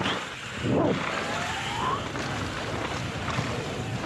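Steady rushing wind noise from fast movement along a mountain trail, swelling into a whoosh just before the first second, with a faint rising whine through the following second.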